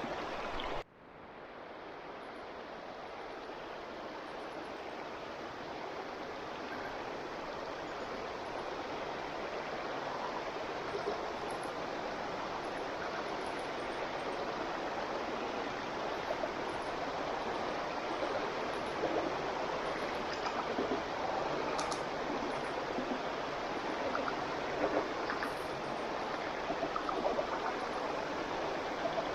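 Steady rushing of a flowing stream. It cuts out for a moment about a second in, then fades back up and grows slowly louder.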